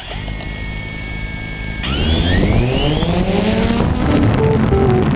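A DJI Phantom 2 quadcopter's four brushless motors spinning at idle with a steady whine, then spooling up in a rising whine as it lifts off about two seconds in. Background music comes in near the end.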